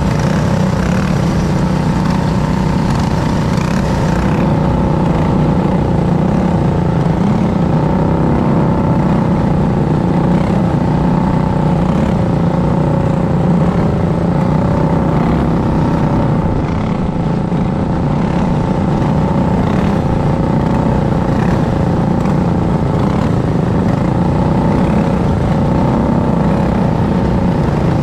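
Racing kart engine running at high revs under racing load, held near a steady speed with its pitch rising and falling slightly through the laps.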